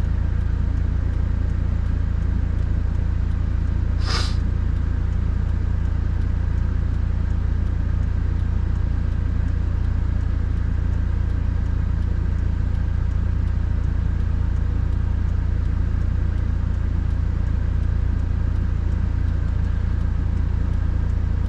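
Steady low rumble inside a Subaru WRX's cabin: engine and road noise. One short, sharp sound stands out about four seconds in.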